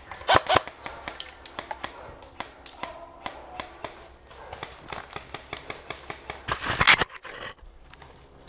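Airsoft electric rifle (Ares Amoeba AM-013) firing the last few shots of a rapid burst, then scattered lighter clicks and snaps. About six and a half seconds in comes a brief, loud scrape.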